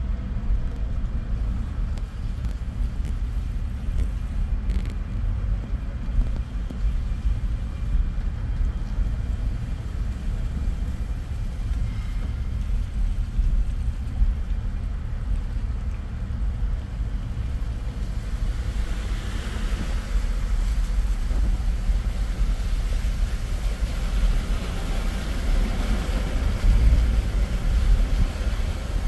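Car driving along a flooded street: a steady low rumble of engine and road noise, with a hiss of water spray from the tyres that grows louder in the last third.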